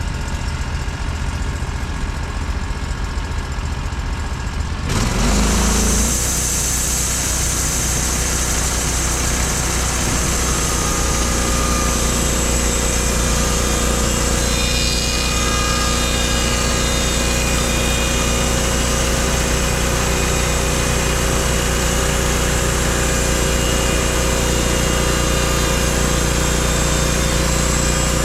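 Portable band sawmill's engine running steadily under load while milling a log. About five seconds in, the sound steps up louder and fuller, then holds steady.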